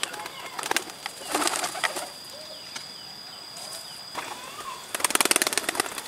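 Pigeon wings flapping in short clattering bursts, the loudest and longest lasting about a second near the end.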